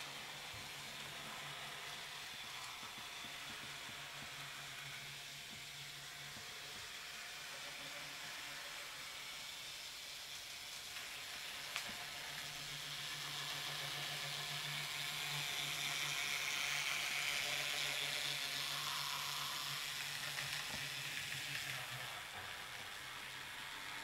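N gauge model diesel locomotive running along the track: a steady whirring hiss from its motor and wheels on the rails, growing louder towards the middle as it comes close and easing off again near the end.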